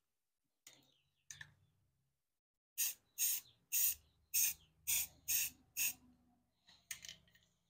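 Aerosol spray-paint can giving seven short hissing bursts, about two a second, as light quick passes over the rifle. A few faint clicks come before and after the bursts.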